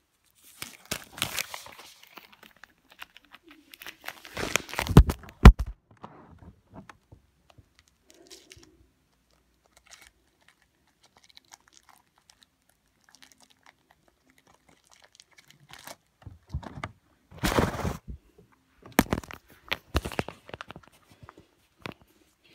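Crinkling and tearing of a Hershey's chocolate bar wrapper being handled and opened, in several irregular bursts with long quiet gaps. The loudest burst, about five seconds in, includes a couple of sharp knocks.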